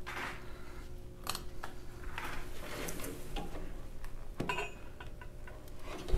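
Light metallic clinks and knocks of steel brace pieces and hand tools being handled and set against a mower frame, a few of them ringing briefly. A faint steady hum runs underneath, and there is a sharper knock near the end.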